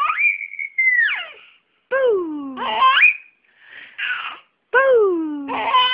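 A happy baby squealing and cooing in separate sounds, some sliding down in pitch. It opens with a thin, high whistle-like note that climbs at its end.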